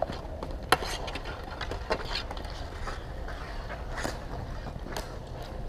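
Game play in a large hall: a few sharp, separate knocks from the play, with a steady murmur of background noise underneath.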